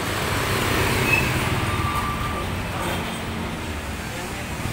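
Street traffic noise: a vehicle's engine and tyres rumbling past on the road, swelling about a second in and easing off after about three seconds.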